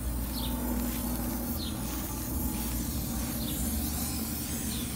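Aerosol spray-paint can hissing steadily as it sprays paint, with a low wind rumble on the microphone.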